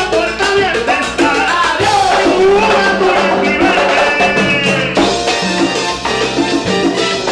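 Live salsa band playing: a male lead vocalist singing over bass and percussion with maracas. About five seconds in the sound changes suddenly and the singing gives way to the band's repeating rhythm.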